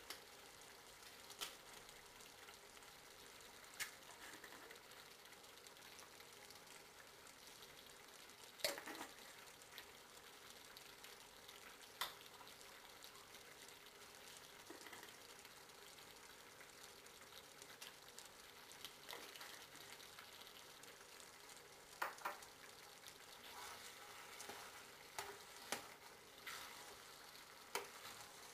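Rice, chicken and vegetables sizzling faintly in a stainless steel saucepan, with a metal spoon stirring and clinking against the pot now and then.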